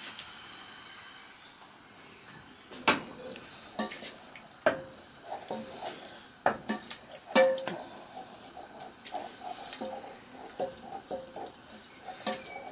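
Wooden spoon stirring a roux thinned with stock in a stainless steel saucepan: several sharp knocks of the spoon against the pan in the first half, then a steady run of scraping strokes.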